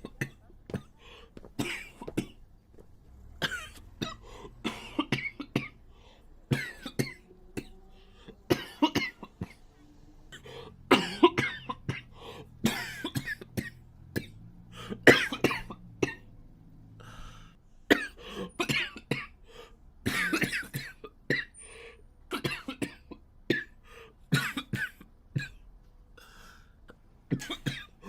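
A boy coughing over and over in short bouts of one to three coughs, a second or two apart, the loudest near the middle.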